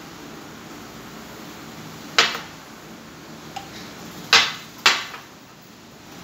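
China teacups and dishes clinking as they are set down and stacked: a sharp clink with a brief ring about two seconds in, a faint tap, then two more clinks close together a little past four seconds.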